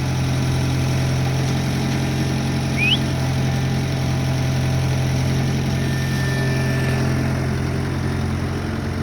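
Skid steer engine running steadily, with a brief high rising chirp about three seconds in.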